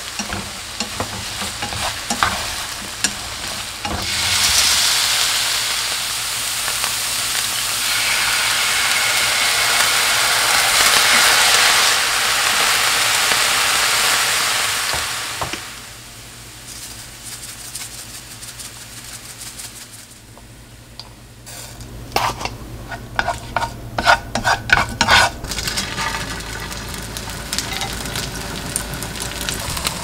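Food frying in oil in a frying pan, sizzling as it is stirred. A loud steady sizzle runs from about four seconds in to about fifteen, then drops to a softer sizzle. A run of sharp pops and ticks comes a little after twenty seconds.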